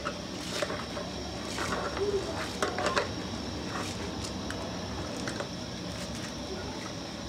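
Soaked rice being scraped by hand out of an aluminium bowl and dropped into a pot of broth: a scatter of light clicks and soft pattering, the busiest a little after two seconds in, over a steady low hum.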